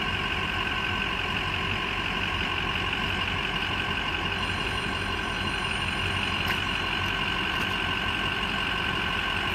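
Hydraulic motorcycle lift on a pickup bed running steadily with a whine as its loaded deck tilts down toward level.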